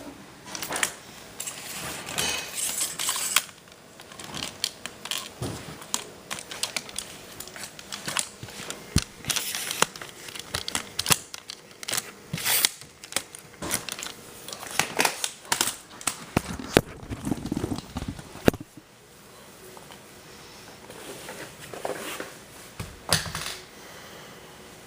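Close handling of a VHS cassette and its case: a string of irregular plastic clicks and taps with bouts of rustling and crinkling.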